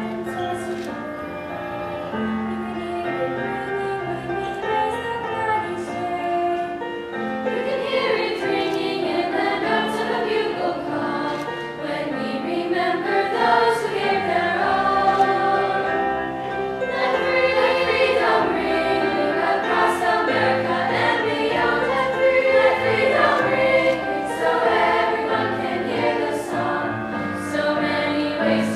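Middle-school choir singing with piano accompaniment; the singing grows fuller and louder about seven seconds in.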